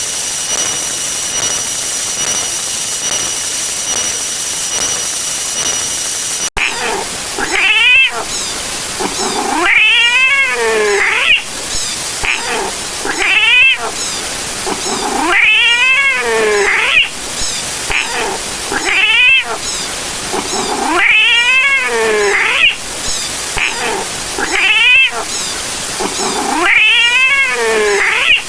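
An angry cat sound effect: a cat yowling, each call rising and falling in pitch, repeated every two to three seconds from about six and a half seconds in. Before it comes a steady hissing noise with a faint high whine, which cuts off suddenly.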